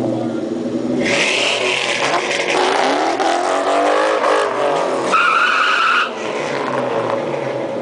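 A Ford Mustang GT's V8 through an aftermarket exhaust idles, then about a second in revs hard with the tires spinning, the engine pitch rising and falling. A high tire squeal holds for about a second near the end before the engine drops back to idle.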